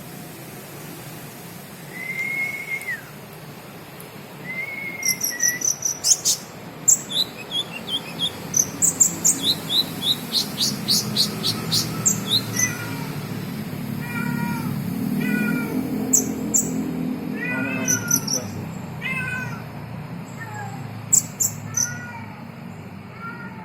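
A kolibri (sunbird) singing: runs of high, quick chirps and cricket-like trills, with repeated short falling mew-like calls lower down through the second half.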